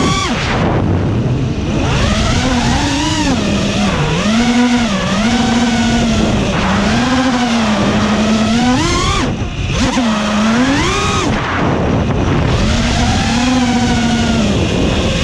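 FPV quadcopter's electric motors and propellers whining, heard from the onboard camera. The pitch swoops up and down with the throttle, with sharp climbs about nine and eleven seconds in and again near the end.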